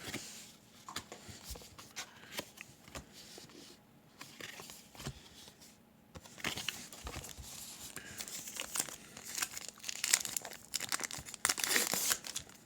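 Trading-card pack wrapper being torn and crinkled while cards are handled: light rustles and clicks at first, then busier crinkling from about halfway.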